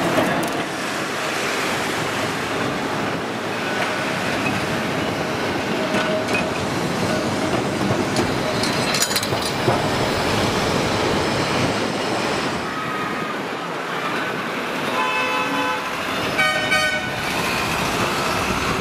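Blackpool heritage trams running past on the promenade track: the illuminated Western Train tram and its trailer car roll by with steady wheel and running noise, and a Balloon double-decker tram approaches. A few short horn toots sound in the last few seconds.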